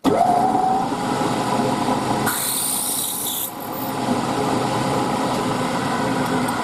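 Machine-tool spindle running steadily while drilling a hole in a brass bracket. It starts abruptly with a short rising whine. A brief hiss comes in about two seconds in and lasts about a second.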